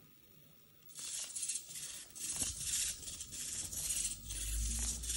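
Six-legged robot moving its legs: hobby servos buzzing in short repeated bursts, with clicks and rattles of its plastic legs. A low rumble joins from about four seconds in.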